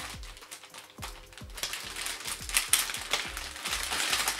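Plastic fish bag crinkling and rustling as hands work at its neck, in a dense run of small irregular crackles that gets busier after the first second or so.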